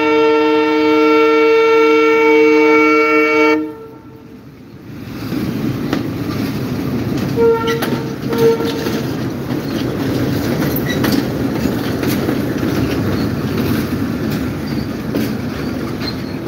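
Sri Lanka Railways class M10A diesel locomotive sounding a long horn chord that cuts off about three and a half seconds in. It then rumbles past close by, wheels clicking over the rail joints, with two short toots of the horn about eight seconds in.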